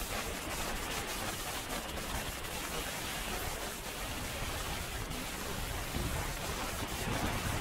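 Heavy rain falling steadily on wet pavement, a constant hiss with a few sharper drop ticks.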